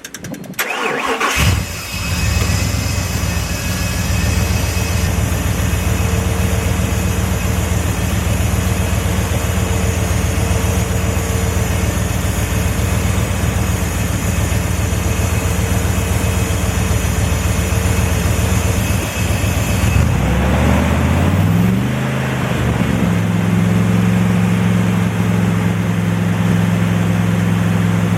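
Truck engine starting and running steadily, then about two-thirds of the way through revving up over a couple of seconds and holding at a higher speed, raised so the distributor's timing advance can be checked with a timing light.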